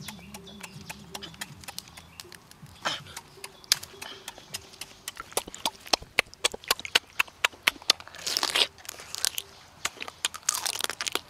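Cooked crab being broken apart by hand and eaten: a run of sharp cracks and crunches of shell with chewing, coming thicker from about halfway through, and two short noisy bursts near the end.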